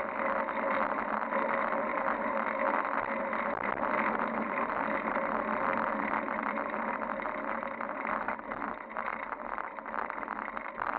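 Steady rushing road and wind noise from a fixed-gear bicycle being ridden over pavement, with wind buffeting the handlebar-mounted microphone. It gets quieter and more uneven about eight seconds in.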